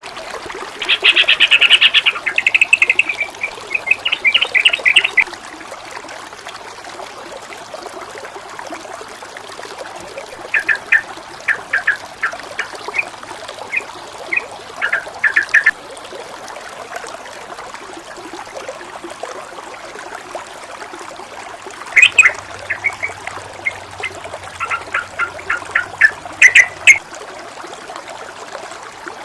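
Small bird giving three bouts of rapid chattering calls, about a second in, around ten seconds in and again near twenty-two seconds, over the steady sound of flowing stream water.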